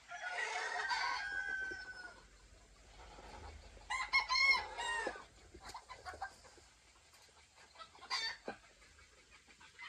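Gamefowl roosters crowing and calling: one long crow in the first two seconds, another about four seconds in, and a short call near eight seconds.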